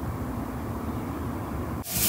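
Steady low rumble of a vehicle on the move. Just before the end it cuts off abruptly and a loud hiss takes over.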